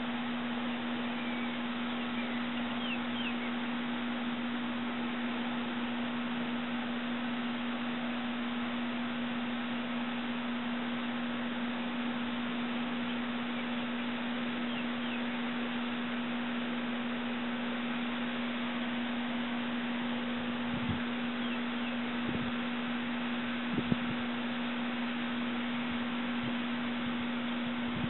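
A steady low-pitched hum over constant hiss, with a few faint short high chirps and some soft clicks near the end.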